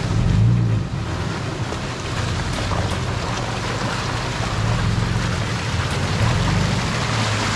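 An off-road 4x4's engine running with a steady low hum, under an even rushing noise.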